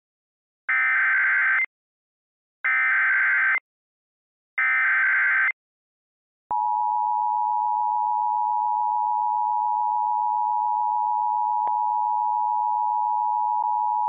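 Emergency Alert System header data bursts, three one-second digital screeches, followed about a second later by the EAS attention signal: a steady two-tone alarm held for about eight seconds.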